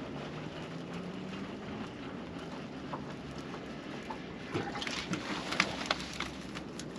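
Steady hiss of water and wind around a small open fishing boat, with a faint rising hum in the first two seconds. Over the last couple of seconds come a few short splashes and knocks as a hooked fish is brought up to the boat.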